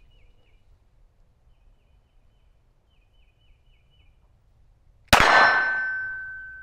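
A single 9mm pistol shot from a SIG P320 Spectre Comp about five seconds in, followed by a metallic clang that rings on one clear tone and fades slowly over the next few seconds.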